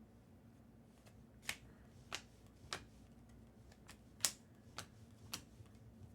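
2024-25 Bowman Chrome trading cards being flipped through a stack one at a time, each card giving a sharp click or snap, about once every half second to a second.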